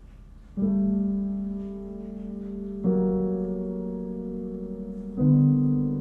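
Piano playing three slow chords, struck about half a second in, near three seconds and just after five seconds, each left to ring and fade.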